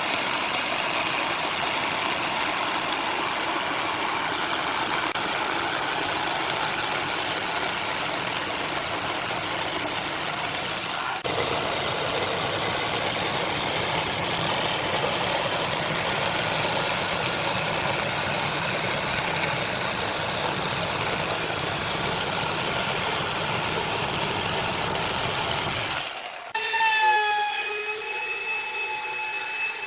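A woodworking power tool running steadily and loudly, with a brief break about eleven seconds in. Near the end it cuts off and a quieter, steady whining tone takes over.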